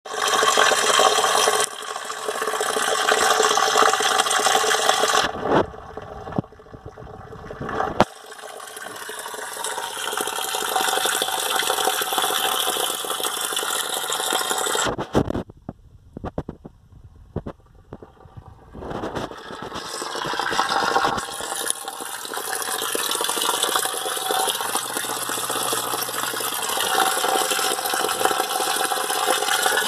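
Water running and splashing steadily in an aquaponic pond. It drops away twice, briefly around a quarter of the way in and more deeply about halfway through.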